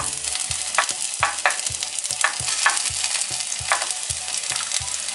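Sliced onion sizzling in hot oil in a clay pan, stirred with a spoon that knocks and scrapes against the pan in a steady rhythm. The onion is being gently fried to flavour the oil.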